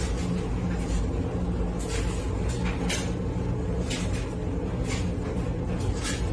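A steady low machine hum, with several light clicks and knocks scattered through it.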